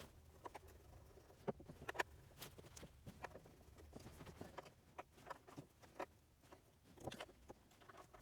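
Faint, irregular light clicks and taps of a 3D-printed plastic gauge pod being handled and test-fitted on a golf cart.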